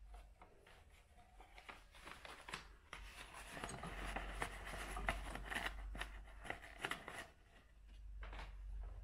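A No. 4 size paper coffee filter for a drip machine being folded and creased by hand to fit a V60 dripper: crackling, rustling paper, densest through the middle, with a shorter rustle near the end.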